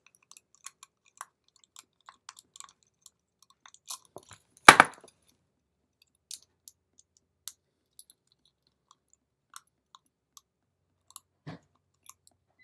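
Small metal clicks and scrapes of a precision screwdriver working at tiny screws inside a padlock, with a louder knock a little under five seconds in and a smaller one near the end.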